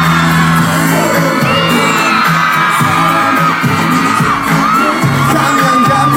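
Live pop concert: backing music with a steady bass line, under a crowd of fans screaming and whooping.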